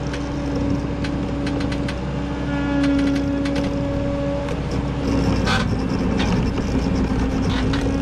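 Case TV450 skid steer's diesel engine running with a steady drone, with scattered clanks and scrapes from the machine at work.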